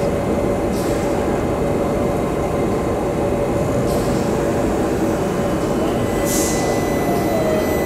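A London Overground Class 378 electric train runs slowly alongside an underground station platform: a loud, steady rumble with a constant motor tone. Short hisses come about a second in, at about four seconds and at about six and a half seconds, and a brief falling whine comes near the end.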